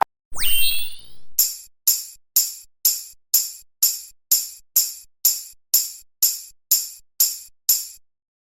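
A quick falling whistle-like sound effect, then a steady run of short, bright tambourine-like hits, about two a second, that stop shortly before the end.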